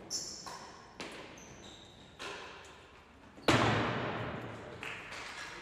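Real tennis rally in an echoing indoor court: a series of sharp knocks from racket strikes and the heavy ball hitting the floor and walls. The loudest, hardest knock comes about three and a half seconds in and rings on in the hall.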